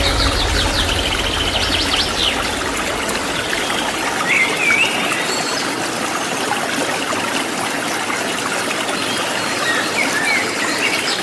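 Steady rushing water of a waterfall, with small birds calling over it in short chirps and trills: near the start, about 2 seconds in, around 4 to 5 seconds, and again near the end.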